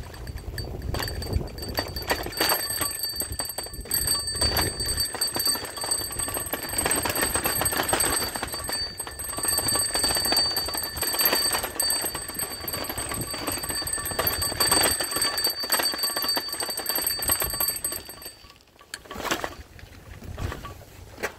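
An alarm ringing: a steady high-pitched ring over rapid clattering, which cuts off suddenly near the end, followed by a couple of knocks.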